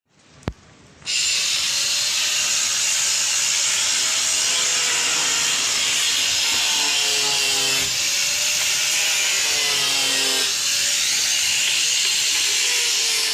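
Hand-held power tool switched on about a second in and then running steadily under load, a loud, even, harsh noise. Faint men's voices can be heard beneath it.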